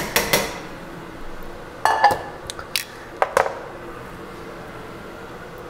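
A few sharp metal clinks and knocks of kitchen utensils against a stainless-steel stockpot: one near the start, a cluster about two seconds in and more about three seconds in, then quiet.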